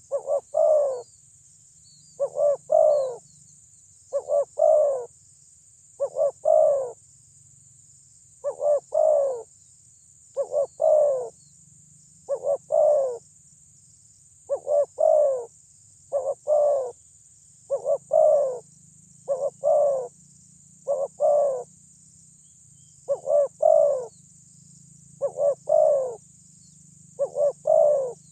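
Spotted dove (terkukur) cooing its loud territorial song, the kind used as a lure to provoke rival doves. It sings short phrases of two to three coos, one roughly every two seconds, over a faint steady high-pitched drone.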